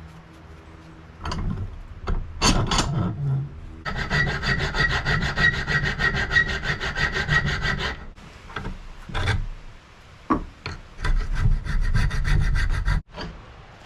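Hand file rasping across steel clamped in a vise, filing a knife guard flat for fitting. A few separate strokes, then a fast even run of strokes in the middle, then more strokes near the end.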